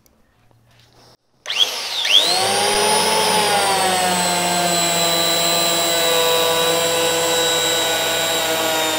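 Virutex CE223X planer-sander fitted with its sanding pad, switched on about a second and a half in: its motor whines up to speed, then runs steadily while sanding along a door edge, the pitch sinking slightly once it is on the wood.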